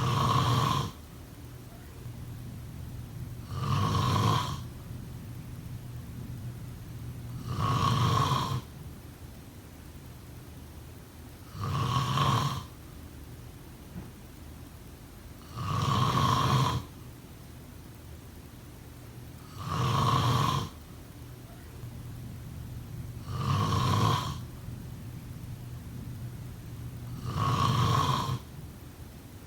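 Snoring in a slow, regular rhythm: a loud snore about every four seconds, each lasting about a second, with quieter breathing between them.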